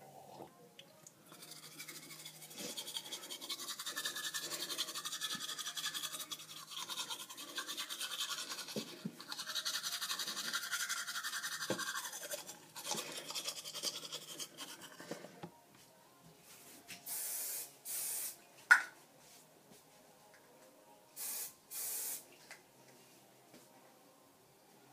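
Teeth being brushed with a toothbrush: a rapid back-and-forth scrubbing that goes on for about fourteen seconds and then stops. After it come a sharp click and four short hissing bursts, two at a time.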